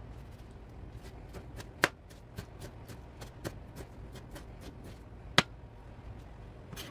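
Kitchen knife chopping a tomato on a plastic cutting board: a run of light, irregular taps of the blade on the board, with two sharper knocks about two and five seconds in.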